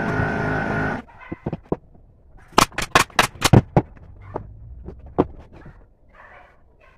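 A steady motor hum cuts off about a second in. Then comes a quick run of about eight sharp snaps in just over a second, with a few lighter knocks after: a pneumatic brad nailer firing brads into wood.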